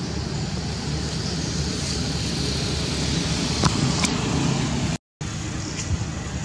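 Steady low rumble of outdoor background noise with a few faint clicks; the sound cuts out for a moment about five seconds in.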